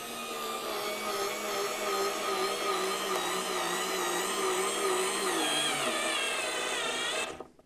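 Parkside PAS D5 4 V cordless screwdriver's motor and gearbox whining steadily as it drives a screw at full torque without the torque-selector attachment. About five and a half seconds in the pitch drops as it labours under the load, then it cuts off abruptly about seven seconds in as the overload protection trips at about 10 Nm.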